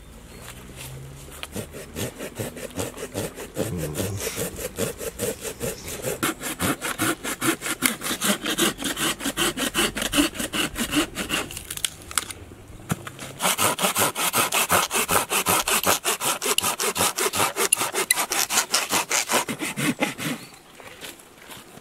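Hand saw cutting through a dead wooden branch, with rhythmic back-and-forth strokes. The sawing pauses for about a second a little past halfway, resumes, then stops shortly before the end.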